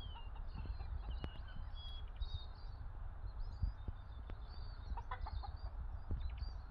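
Black Copper Marans rooster giving a few short low clucks about five seconds in, over many small high chirps of wild birds and a steady low rumble.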